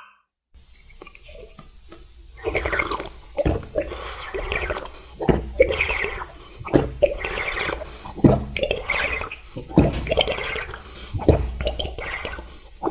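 Close-miked ASMR eating sounds: wet, squishy chewing that starts in earnest about two and a half seconds in, with a sharper wet smack about every second and a half.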